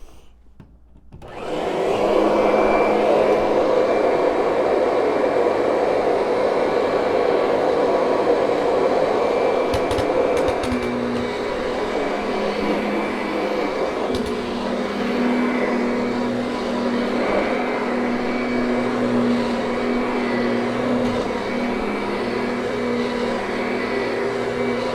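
Kirby upright vacuum cleaner switched on about a second in and running steadily while it vacuums carpet, its hum shifting in pitch a little about ten seconds in.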